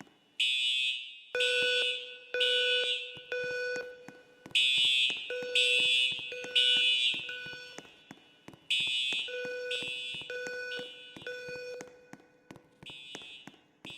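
School fire alarm sounding during a test: repeated pulses of about a second each, roughly one a second, broken by short pauses. Each pulse mixes a high-pitched tone with a lower, buzzy horn tone. It sounds between repeats of a recorded evacuation announcement.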